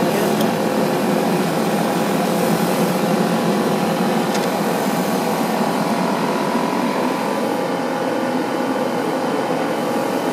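Steady motor whir with a hum from an airbrush spray booth's extraction fan, drawing the sprayed food-color dust into its filter while an airbrush sprays.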